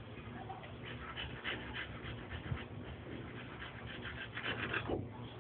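A boxer dog panting in short, irregular puffs of breath.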